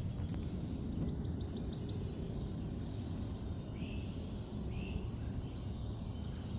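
Wild birds singing: a fast run of high, falling notes about a second in, then two short lower calls near the middle, over a steady low rumble.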